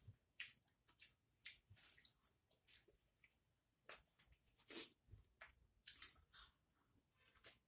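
Close-up eating sounds: chewing and wet mouth clicks and smacks as mouthfuls of rice are eaten by hand, irregular short sharp sounds about twice a second.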